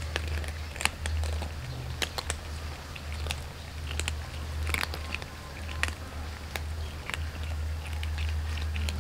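A group of cats crunching dry kibble: many small, irregular crunches and clicks as they chew, over a steady low hum.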